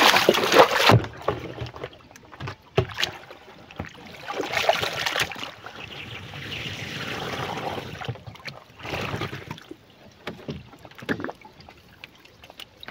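Water pouring out of a rubber bucket and splashing into the river for about the first second, then quieter sloshing and lapping of water with a few sharp knocks against the wooden canoe.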